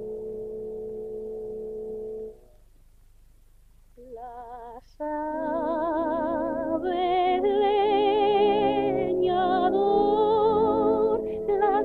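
A held orchestral chord with brass ends about two seconds in, followed by a short silence. A woman's voice then begins singing with a heavy vibrato, and an orchestra comes in under her about a second later.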